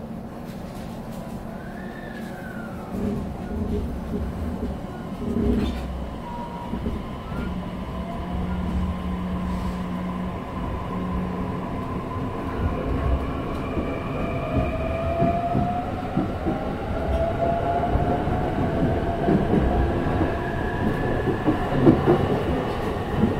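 Inside an E531 series electric train pulling away from a station: the traction motor and inverter whine climbs in pitch as the train accelerates, while wheel and rail rumble grows louder.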